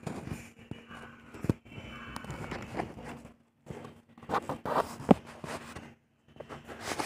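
Scattered tapping, scraping and rustling as a thin stick dabs black paint onto a lump of set cement, with two sharp knocks, one about one and a half seconds in and one about five seconds in. A steady low hum runs underneath.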